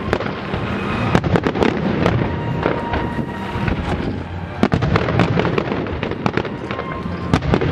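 Aerial firework shells bursting in rapid succession in a finale barrage: a continuous rumble of overlapping booms, cut by many sharp bangs and crackles.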